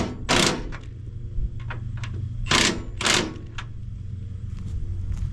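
Impact wrench run in four short bursts, two near the start and two more about two and a half seconds in, over a steady low engine hum.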